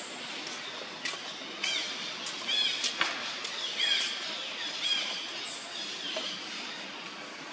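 A monkey giving a string of short, high-pitched squeaking calls, four or five of them over a few seconds, each rising and falling in pitch, with a few scattered clicks.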